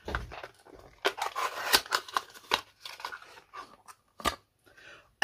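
Cardboard advent calendar door and product packaging being opened by hand: an irregular string of short crackles, rustles and clicks.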